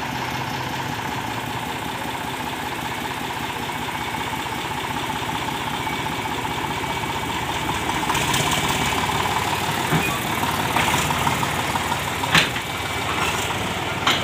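Eicher 548 tractor's diesel engine running steadily while its trailer bed is tipped, getting louder about eight seconds in. A few sharp knocks stand out near the end.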